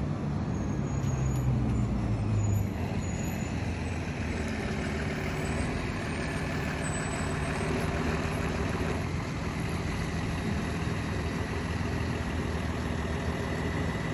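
School bus engine running steadily as the bus pulls up to the curb and stops.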